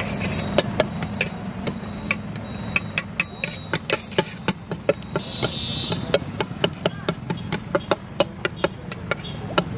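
Steel spoon stirring sweet corn chaat in a steel pot, clinking against the pot's sides in quick, irregular knocks, about two to three a second.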